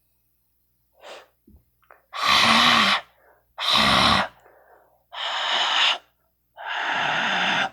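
A person's breathy hissing exhalations, a faint one and then four puffs of under a second each, made by mouth to imitate white noise.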